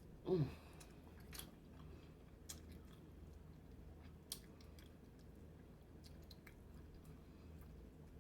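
Close-miked eating of boiled blue crab: soft chewing with scattered sharp clicks and crunches. A short falling 'mm' hum comes just after the start.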